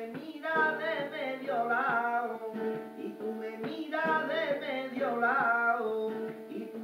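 A man singing flamenco tangos de Granada to his own guitar accompaniment, in two long, ornamented phrases whose pitch bends and wavers, over the plucked and strummed guitar.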